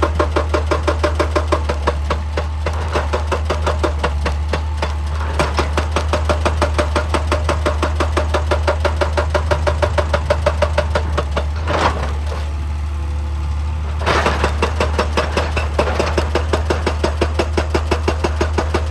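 Excavator-mounted hydraulic breaker hammering rock in a fast, even rhythm of about nine blows a second over the machine's running diesel engine. About two-thirds of the way in the hammering stops for a second or two, leaving the engine, then starts again.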